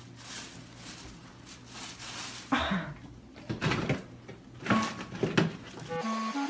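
A cardboard snack box rustling and scraping in several short bursts as a puppy moves around with its head stuck inside it. Music with plucked notes begins near the end.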